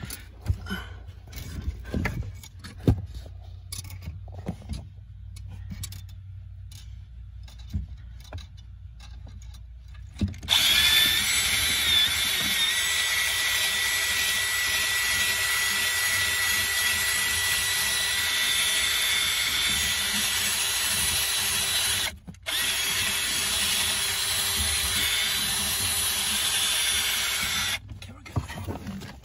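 Cordless drill spinning a long thin bit in the steering shaft's bolt hole to clean its threads. It runs steadily for about eleven seconds, stops for a moment, then runs again for about five seconds. Before it starts, scattered clicks and knocks of tool handling.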